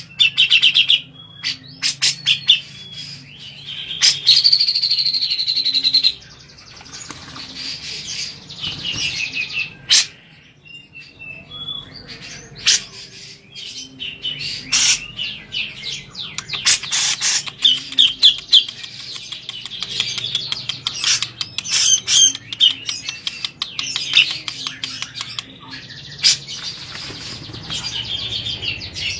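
Grey-cheeked bulbul (cucak jenggot) calling: loud, sharp repeated notes and chattering runs, with a sustained buzzy trill about four seconds in.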